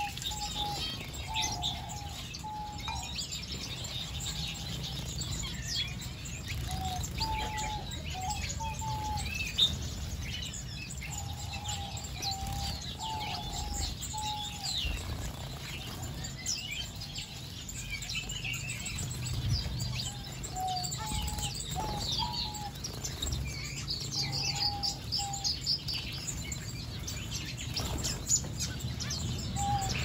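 A mixed aviary flock of small finches and waxbills chirping and calling continuously, with many short high chirps and a lower-pitched call recurring in short runs every few seconds. Wing-fluttering and splashing come from birds bathing in a shallow water dish.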